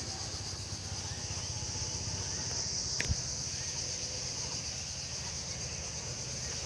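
Insects droning in a steady, high-pitched chorus, with a single sharp click about halfway through.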